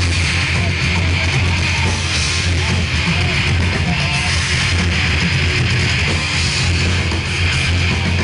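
Heavy metal band playing live: electric guitars, bass and drums at full volume, heard from among the audience with a heavy low end.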